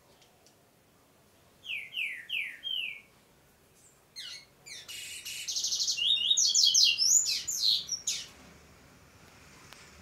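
Double-collared seedeater (coleiro) singing: four clear notes each falling in pitch, then about a second later a louder, faster phrase of quick trilled and sharp notes lasting about four seconds.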